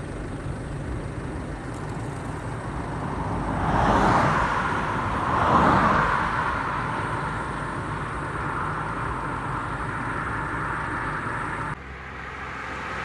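Road traffic: two vehicles drive past, the first about four seconds in and the second about two seconds later, over a steady rumble of engines and tyres.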